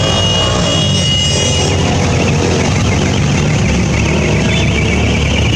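Motorcycles and a quad bike riding past in a parade, their engines running with a steady low rumble. A high, steady tone sounds over them for the first two seconds or so.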